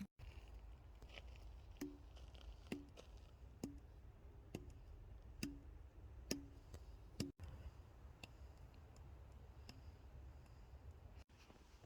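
Faint, regular clicks about one a second, each with a brief low ring after it, over quiet room tone; fainter, scattered clicks follow.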